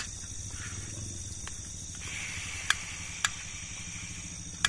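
Portable butane camping stove being lit: gas hisses briefly, then a few sharp clicks of its igniter, over a steady chorus of crickets.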